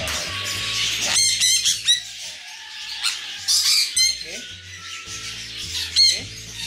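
Parrots squawking in short, high-pitched calls that come in clusters: about a second in, around three and a half to four seconds, and again about six seconds in.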